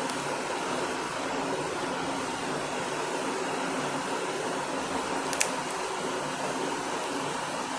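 Steady background hiss of room noise, with a single sharp click about five seconds in as plastic marker pens are handled and fitted together.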